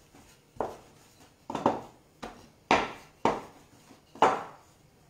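Five sharp knocks on a wooden pastry board, about one a second, as piadina dough is pressed and flattened on it.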